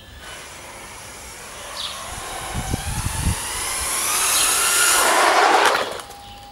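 Electric RC car's motor and gears whining at speed, rising in pitch as it accelerates and loudest about five seconds in, then dropping away sharply near the end. A few low thumps come about two and a half to three seconds in.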